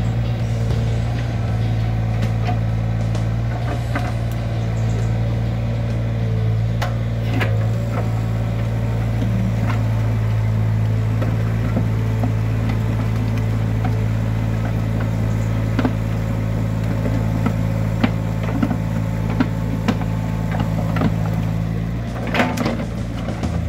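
Amphibious excavator's diesel engine running steadily, with scattered sharp knocks that come more often in the last few seconds.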